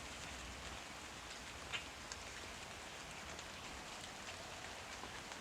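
Quiet, steady outdoor hiss, like light rain or precipitation pattering, with a faint low wind rumble and a single soft tick about two seconds in.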